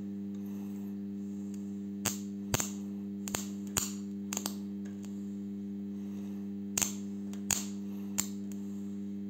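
Homemade spot welder built from a microwave oven transformer, humming steadily while its electrode tips are pressed onto a wire mesh basket. About eight sharp snaps of sparking come in two bunches as the tips make contact with the wire.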